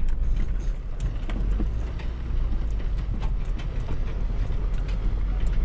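Off-road vehicle driving slowly over rough dirt and rocks: a steady low engine rumble with scattered knocks and rattles.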